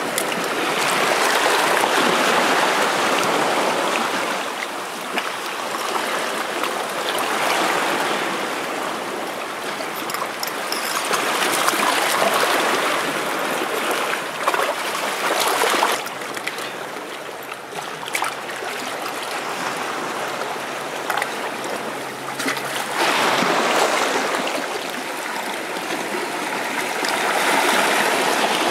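Shallow water rushing and splashing over rocks, swelling and easing every few seconds. About halfway through come a couple of sharp knocks of a hatchet blade against rock while prying chitons loose.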